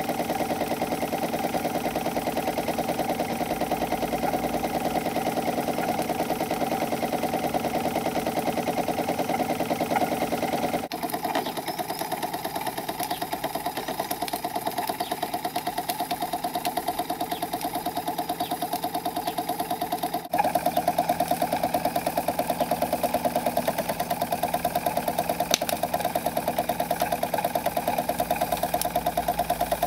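Handmade model saddle steam engine running steadily: a rapid, even mechanical beat. The sound cuts abruptly to a quieter take about a third of the way in and to a louder one about two-thirds in.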